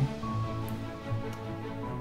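Background music of soft, steady held tones.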